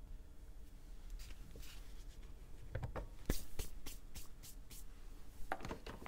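Hands assembling a sandwich on a sandwich press: scattered light taps and rustles as cheese, tomato and a top slice of bread are laid on. The sharpest tap comes about three seconds in.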